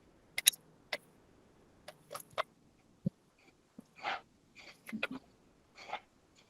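Parts of a dosa maker being handled during disassembly: a series of sharp clicks and knocks, a low thump about three seconds in, then several short scraping rubs.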